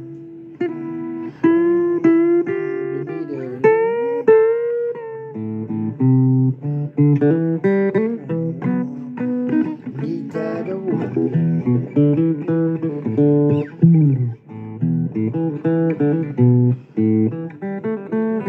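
Instrumental break in a blues song: guitar playing melodic lines with bent notes over chords.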